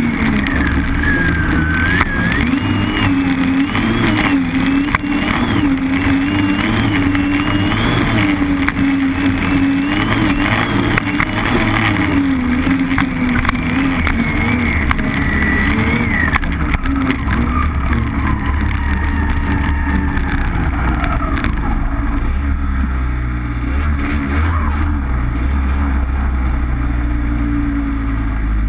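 Arctic Cat M7 snowmobile's two-stroke engine heard from on board, running hard at speed with the revs wavering up and down. Past the middle the revs fall over several seconds as the sled slows, and it runs lower and steadier near the end.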